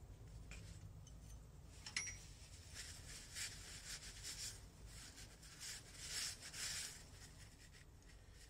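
Cloth rag rustling and rubbing against a metal clutch inner drum as it is handled and wiped, in a few faint scrubbing bursts, with a light click about two seconds in over a low steady hum.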